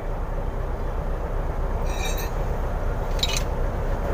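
Steady low background rumble with two light metallic clinks, about two and three seconds in, as hands work at a truck's differential pinion housing.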